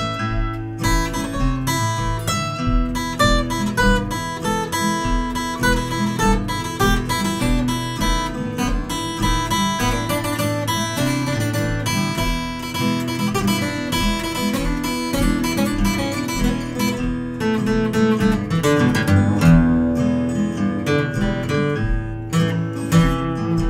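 Solo steel-string acoustic guitar played fingerstyle: picked melody notes and chords over a steady, evenly spaced thumb bass.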